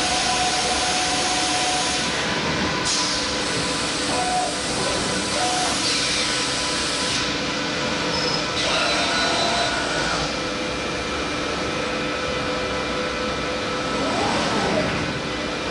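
C.R. Onsrud 5-axis CNC router milling aluminum pipe: a steady, loud cutting noise with several high held spindle tones, and a few brief sweeps in pitch as the cut changes.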